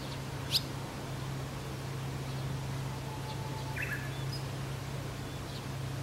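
Japanese bush warbler (uguisu) singing faintly: a held low whistle, then a quick higher flourish about four seconds in, with a few faint high chips. A single sharp high chirp about half a second in is the loudest sound, over a steady low hum.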